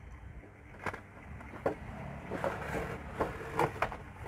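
Cardboard toy box being handled as its inner tray is slid out of the outer sleeve: rustling and sliding, with a few short knocks.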